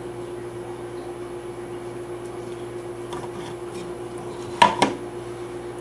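Steady room hum with a few faint light ticks, then two sharp clacks close together about four and a half seconds in as the plaster model building is handled and knocked against the workbench.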